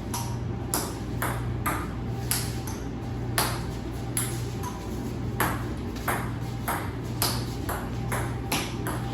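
Ping-pong ball rally: the ball clicks off paddles and the table in irregular sharp taps, about two or three a second, over a steady low hum.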